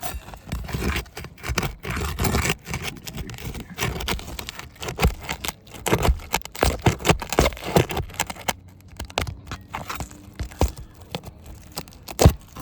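Metal snake tool scraping and clicking under a brittle asphalt shingle as a roofing nail is worked out, with a sharp knock near the end.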